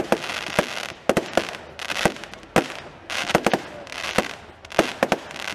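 A fireworks display: a quick, irregular run of about fifteen sharp bangs, sometimes two or three within half a second, with a hissing haze between them.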